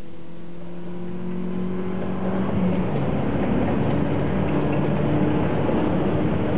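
Car engine and road noise heard inside the cabin, growing louder about two seconds in as the car speeds up to chase the car ahead.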